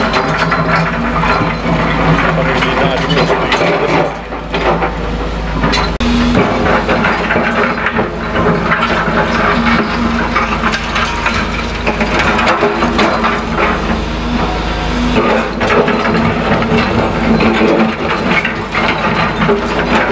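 Caterpillar excavators' diesel engines running under load, with irregular crunching, cracking and clattering of demolition rubble being broken and moved.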